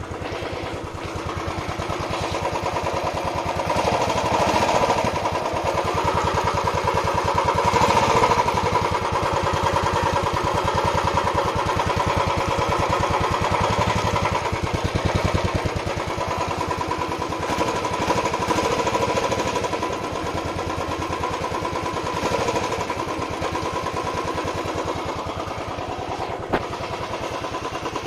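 Royal Enfield Classic 350 BS6's single-cylinder engine running through its stock exhaust with an even, steady pulsing beat. It is revved up a little, loudest about four and eight seconds in, then settles back towards idle. One sharp click comes near the end.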